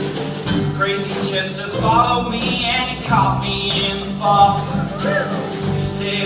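Live band playing a country-folk song: strummed guitars with a singer's voice coming in about two seconds in.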